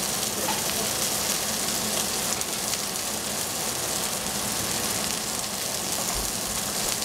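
Cauliflower florets sizzling in a stainless steel saucepan: a steady hiss with scattered faint crackles.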